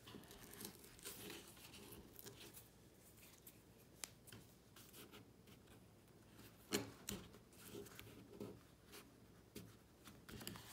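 Faint handling sounds of metal pliers picking and tugging at the degraded leather on an old book board: a few small clicks and scrapes, the loudest just under seven seconds in.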